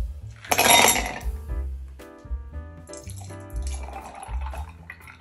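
Ice cubes tipped from a bowl clatter into a glass tumbler about half a second in, and near the end milk is poured over the ice into the glass. Background music plays throughout.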